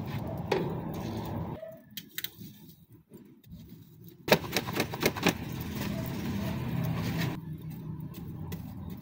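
A few sharp metallic clinks and clatters as a hinged wire fish-grilling basket is handled on the metal rail over the fire, most of them in a quick cluster a little after the middle. Under them is a steady low rumble that drops out for a couple of seconds before the clatter.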